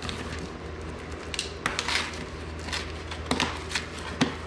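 Small cardboard box being cut and pried open by hand with a box cutter: scattered scraping and crinkling of cardboard and tape, with several sharp clicks.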